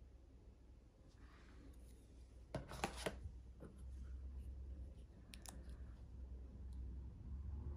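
Small plastic dropper bottles picked up and handled on a tabletop. A quick cluster of clicks and taps comes about two and a half seconds in, then a few lighter clicks, over a faint low rumble.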